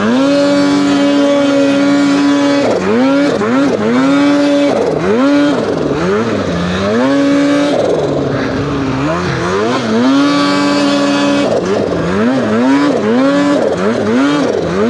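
Turbocharged two-stroke snowmobile engine of a 2023 Polaris Khaos Boost with an SLP Competition exhaust can, revved up and down again and again as the throttle is worked while side-hilling in deep snow. It is held at high revs for a couple of seconds at the start and again around ten seconds in.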